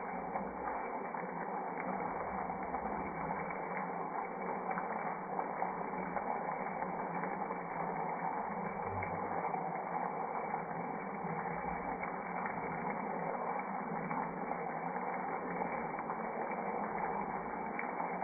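Shredded potato and egg mixture cooking in a frying pan: a steady sizzle with faint scattered crackles.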